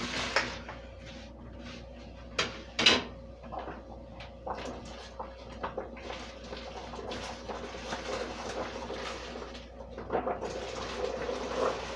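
Vegetables being put into a pot of boiling water for blanching: a few sharp clanks of a container or utensil against the pot in the first three seconds, then steady hissing and bubbling of the boiling water with small knocks as pieces go in.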